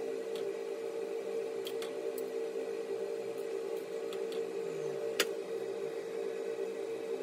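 Light clinks of metal tongs and cookware against a ceramic plate as food is plated, the sharpest about five seconds in, over a steady low hum.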